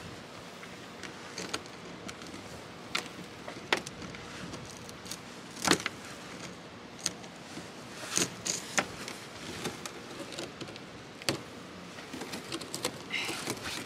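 Scattered sharp clicks and knocks of metal bungee-strap hooks being worked loose on an ice-crusted kayak hatch cover, with a louder knock about six seconds in and a cluster of clicks a little later.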